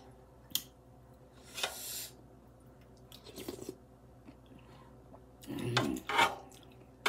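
A person eating noodle soup: a slurp of noodles and broth and chewing sounds, with a short hum of enjoyment near the end.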